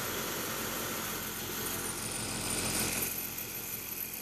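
Jaki JR8700 single-needle industrial lockstitch sewing machine running, its needle bar chattering at a rapid steady rate as it stitches, a little louder about three seconds in.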